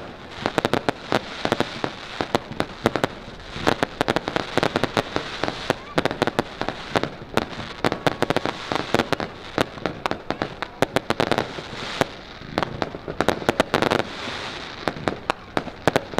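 Fireworks display: a dense run of sharp pops and crackles from bursting shells, coming in clusters with brief lulls.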